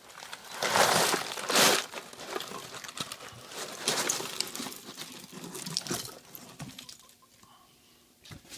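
A box-load of small electronic parts being tipped out of a cardboard box into a heap: plastic bags crinkle and small components clatter. It is loudest in the first couple of seconds, then settles into scattered clicks and rustles that die away after about six seconds.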